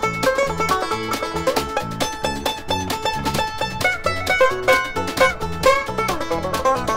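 Instrumental passage by a small band: banjo picking quick runs of notes over an electric bass line and a snare drum damped with a towel.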